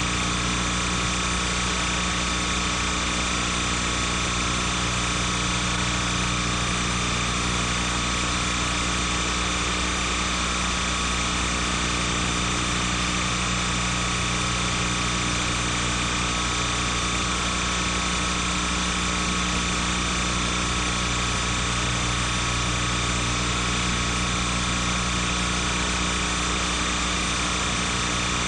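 A steady hum and hiss with several fixed tones, unchanging throughout. It is noise from the transfer, not from the scene.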